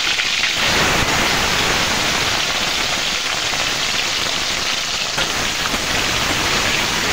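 Potato pieces sizzling steadily as they fry in hot mustard oil in an iron kadhai.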